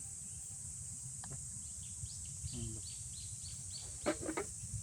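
Forest ambience: a steady, high insect drone, with a bird calling a quick run of about six short, repeated notes in the middle.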